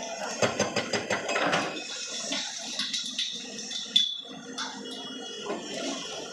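A Tata Hitachi excavator demolishes a concrete wall: broken concrete and rubble crash and clatter down in a dense run of impacts in the first two seconds. A single sharp, ringing clank follows about four seconds in.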